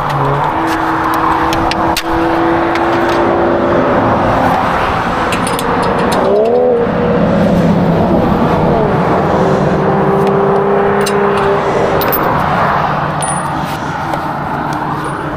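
Steady engine and road noise inside the cab of a moving vehicle, with a brief rise and fall in engine pitch about six or seven seconds in.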